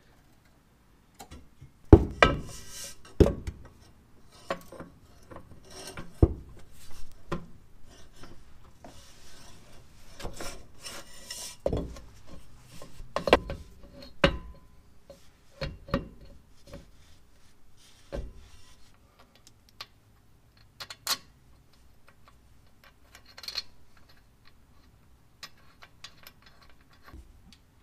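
A driveshaft being fitted by hand under a car: irregular metal knocks, clanks and scraping as the driveshaft's rear U-joint is worked into the rear axle yoke and its retaining strap is set in place. The loudest knocks come about two seconds in.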